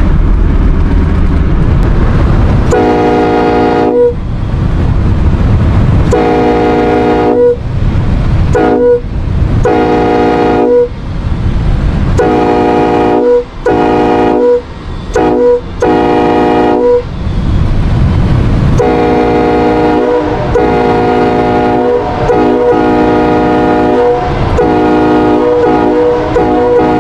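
Nathan K5LLA five-chime train horn, raised-letter two-piece build, sounding its chord in a string of short blasts of about a second each, then held in longer, nearly unbroken blasts through the second half. A low rumble fills the gaps between blasts.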